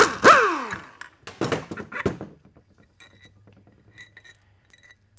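Power driver spinning bolts out of a 4L65E transmission pump body: short whirs at the start, the motor's pitch falling steeply as each spins down. Then rattles and light metallic clinks as the loose steel bolts are handled.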